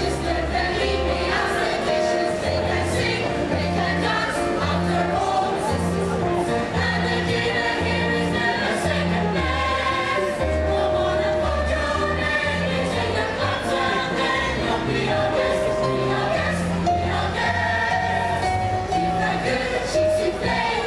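A group of voices singing together over instrumental accompaniment with a steady, pulsing bass line.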